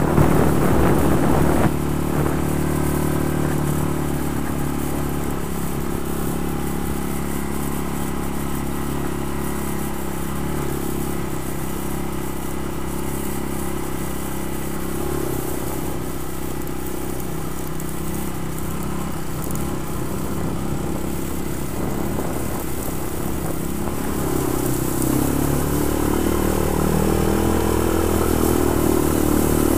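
ATV engine running while being ridden, the note shifting with the throttle. It is louder for the first two seconds, then steady, then rises and falls near the end.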